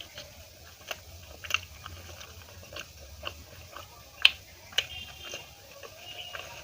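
Close-up chewing and mouth sounds of someone eating, with a series of short, sharp, wet clicks. The loudest click comes about four seconds in.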